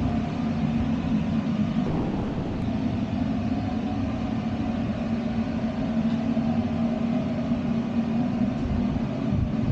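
Steady mechanical hum with a held low tone, shifting slightly about two seconds in.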